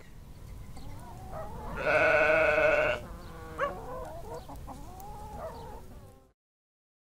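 A sheep bleats once, a single loud wavering call of about a second, over a faint background with a few thin chirps; the background cuts off suddenly near the end.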